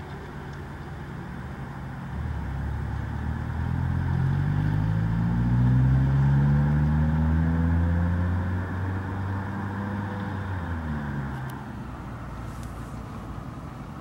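A car driving past: engine and road noise swell to a peak about six seconds in and then fade, the engine note climbing as it comes and dropping as it goes away.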